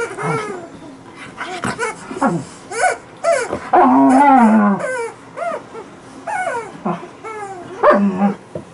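Alaskan Malamute whining and grumbling in play while she mouths her chicken toy: a string of short rising-and-falling whines, with one longer, lower grumble about four seconds in.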